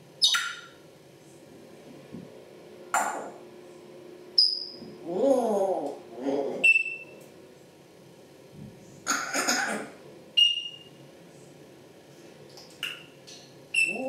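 African grey parrots calling: a few harsh, noisy squawks, short high whistles that slide downward, and, about five seconds in, a lower call with falling pitch.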